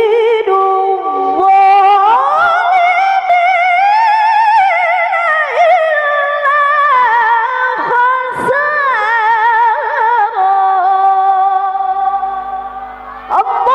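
A qari'ah (female Quran reciter) chanting the Quran in the melodic, drawn-out mujawwad style through a microphone, her high voice holding long notes with rapid ornamental turns that climb in pitch early on. Near the end she breaks off briefly for breath, then starts the next phrase.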